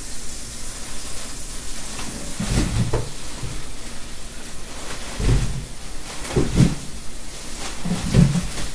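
Shucked ears of corn being emptied from a plastic bag into a kitchen sink, knocking down in a handful of dull thumps at irregular intervals, with the bag rustling.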